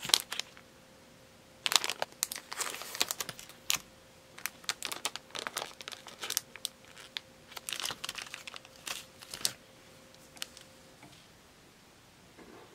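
Thin clear plastic zipper bag crinkling as it is handled, in clusters of sharp crackles, dying away about ten seconds in.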